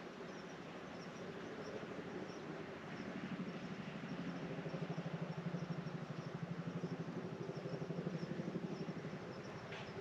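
Steady rain in a garden with insects chirping in a fast, regular pattern. A low pulsing hum swells up from about three seconds in and fades near the end.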